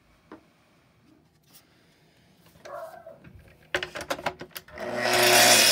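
A quick run of sharp clicks and knocks as the Festool TS55 track saw is handled on its aluminium guide rail, then the saw's motor starts about five seconds in, rising quickly to a loud steady run.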